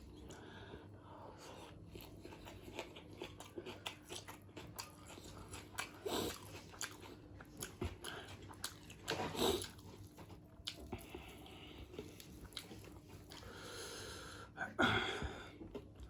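Close-miked chewing and biting of chicken biryani: continual soft, wet mouth clicks, with louder bites about six seconds in, just under ten seconds in, and again near the end.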